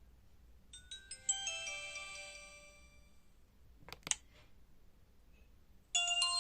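Alcatel OT-385JA mobile phone playing its built-in ringtones: a short bright, chime-like run of notes that rings out and fades, then a couple of sharp clicks, then the next ringtone starting near the end.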